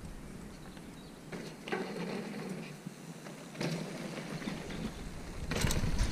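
Mountain bike rolling past on a dirt trail: tyre noise on loose dirt, with a few short rough bursts and getting louder near the end.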